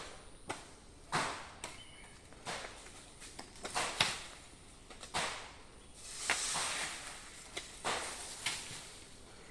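Irregular sharp chopping strikes into wood, roughly one a second, with no engine running. About six seconds in there is a longer rushing noise lasting about a second.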